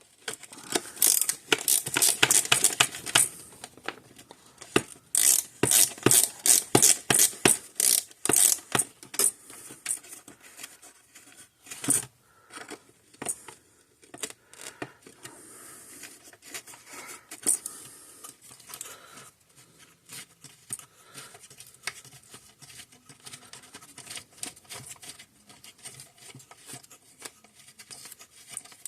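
Small hard parts and hand tools clicking, rattling and scraping on a workbench as an electric fence charger is taken apart. There are dense runs of rapid clicks in the first few seconds and again around the middle, a single sharp knock partway through, then scattered lighter clicks.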